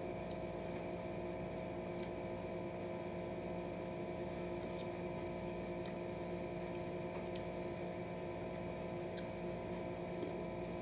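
Steady background hum of a running machine or appliance in the room, with several constant tones. A few faint clicks of eating are spread through it.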